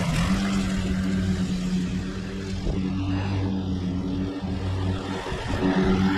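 Petrol engine of a 21-inch walk-behind lawn mower running steadily.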